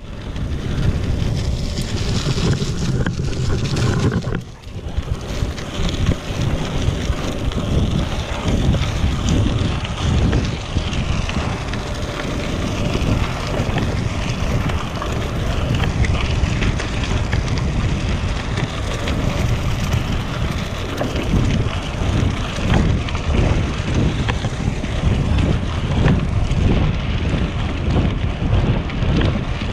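Wind buffeting the microphone of a handlebar-mounted GoPro on a moving bicycle, mixed with the rumble of the Cannondale CAADX gravel bike's tyres rolling over a leaf-covered trail. The noise eases briefly about four seconds in.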